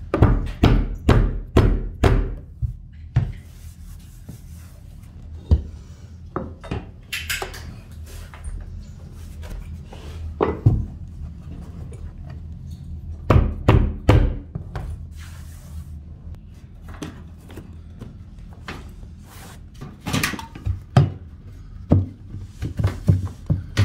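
Rubber mallet striking a steel flooring pull bar, knocking vinyl planks tight against each other. The knocks come in groups: a quick run of about half a dozen at the start, single knocks now and then, and clusters in the middle and near the end.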